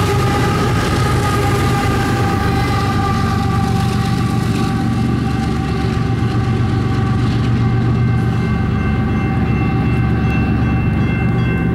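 Union Pacific freight train passing at a grade crossing: its diesel locomotives rumble steadily and low. Several steady high-pitched tones ring over the rumble throughout, falling slightly in pitch over the first few seconds.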